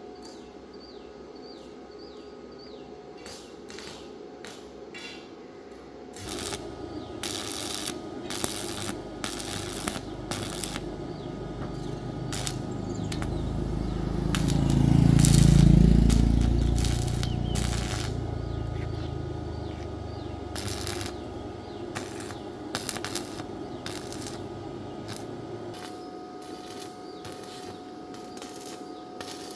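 An engine's rumble builds up, peaks about halfway through with a bend in pitch, then fades away, much like a vehicle passing by. Sharp clicks and taps of small metal work sound throughout.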